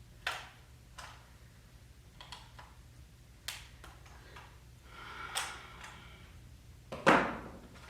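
A few sharp clicks and scrapes from handling a Vivitar 283 flash unit as a stuck battery holder is worked at to free it, with the loudest click and scrape near the end.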